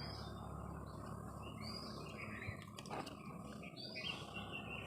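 Birds chirping faintly, short calls coming about once a second, over a steady low hum.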